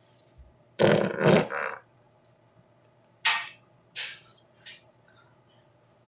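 A woman farting: a loud run of three farts about a second in, followed by a few shorter ones a couple of seconds later.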